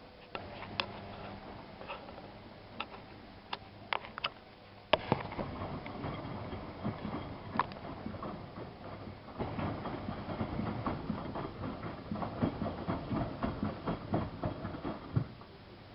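Miele Softtronic W3657 front-loading washing machine mid-wash, its drum turning the laundry with a low motor hum and scattered sharp clicks. About five seconds in, a sharp knock starts a louder stretch of tumbling. The knocking and rustling grow busier again about halfway through, as the wet load drops inside the drum.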